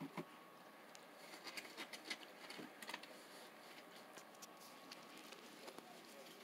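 Faint, scattered soft clicks and rustling of a ferret moving over carpet and a fleece blanket, busiest in the first half, then almost quiet.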